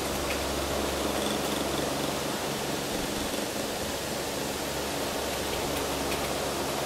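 Steady hiss with a faint, low electrical hum underneath and an occasional tiny tick.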